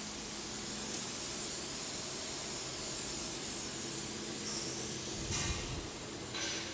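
Steady hiss with a faint low hum, broken by two brief noises a little over five seconds in and again about a second later.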